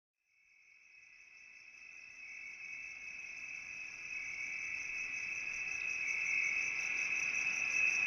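A steady, high, cricket-like trill that fades in from silence and grows steadily louder.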